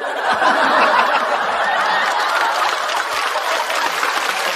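Large studio audience laughing and applauding in reaction to a stand-up joke, a dense, steady wash of claps and laughter.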